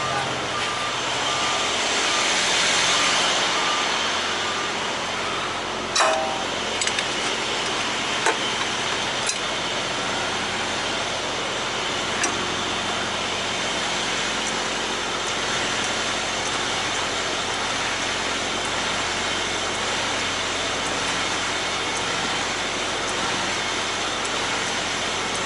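Semi truck's diesel engine idling steadily, with a few sharp clicks, the loudest about six seconds in.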